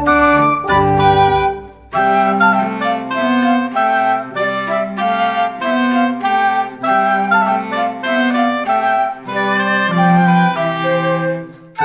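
Instrumental background music: a melody of short notes over a bass line, breaking off briefly about two seconds in.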